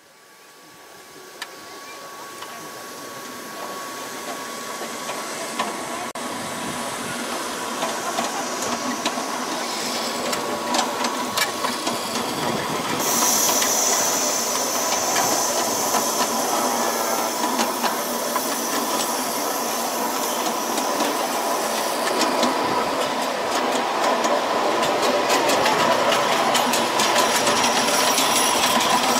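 Ride-on miniature live-steam locomotive train running with passengers aboard: a steady hiss of steam over the wheels clicking on the small-gauge rails, growing louder as it fades in. About halfway a sharper, higher hiss comes in suddenly.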